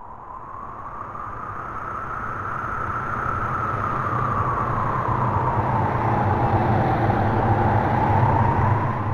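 Horror sound effect: a low rumbling noise with a slowly wavering whoosh above it, swelling steadily louder over several seconds.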